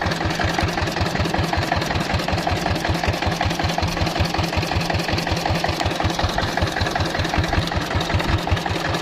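Small river boat's (kelotok's) inboard engine running steadily, with an even chugging beat of about six pulses a second.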